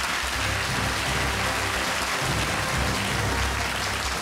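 Studio audience applauding over entrance music with low, sustained bass notes.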